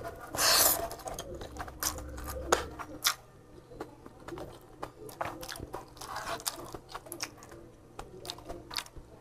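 Close-up eating sounds: a loud slurp of fried glass noodles about half a second in, then chewing with many small wet mouth clicks and smacks.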